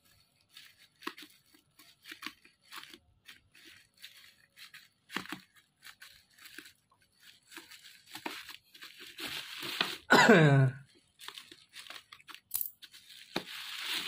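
Scissors snipping and hands tearing plastic bubble-wrap packaging: scattered small clicks and crackles, thickening into a continuous tearing, crinkling rustle in the last few seconds. About ten seconds in, a short loud voice sound falls in pitch.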